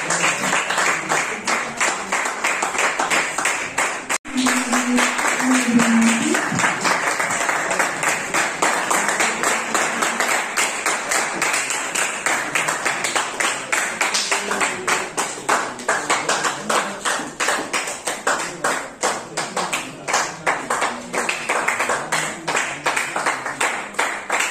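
A small group of people clapping steadily. The sound drops out for an instant about four seconds in.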